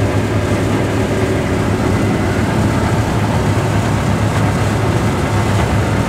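Combine harvester running steadily while harvesting wheat, heard inside the cab: a constant low engine hum under an even rush of threshing and machinery noise.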